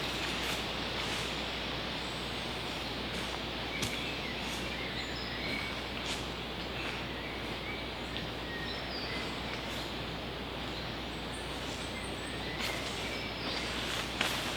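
Steady outdoor background hiss with faint short bird chirps now and then and a few light clicks.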